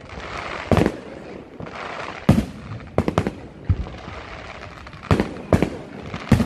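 Fireworks display: aerial shells bursting with about eight sharp bangs at irregular intervals, some in quick pairs, over a steady hiss between them.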